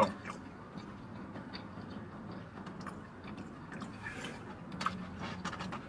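A person chewing potato wedges, with a few faint clicks scattered through.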